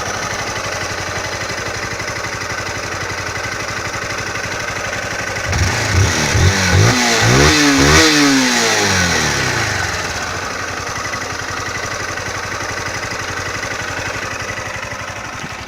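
Honda CG Titan 160 single-cylinder four-stroke engine idling, revved several times in quick succession about a third of the way in, then settling back to idle. It carries the mechanical noise the owner likens to valve tapping and says Honda told him is normal for this engine.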